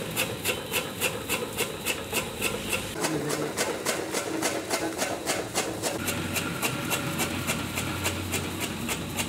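Straw chaff cutter running and chopping, with regular sharp clicks about four a second over a rasping, rubbing noise. A steady low hum joins about two-thirds of the way through.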